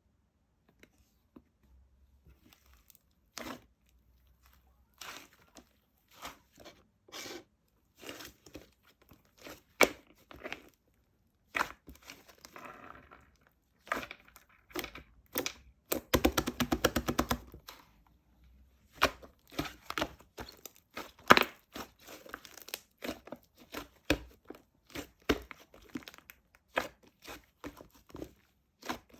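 A series of tearing and crinkling sounds made up of many separate short cracks and rustles. A rapid run of about two seconds, just past the middle, is the loudest part.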